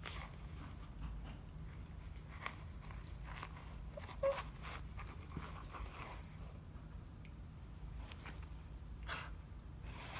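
Faint scuffing and soft knocks of a cat rolling and kicking a plush catnip toy inside a small cardboard box, with a brief pitched sound about four seconds in.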